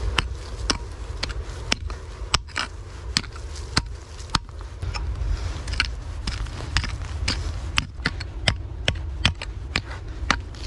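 Wooden-handled pick digging into stony soil, with repeated sharp strikes about one to two a second as it chops into dirt and knocks against stones, over a steady low rumble.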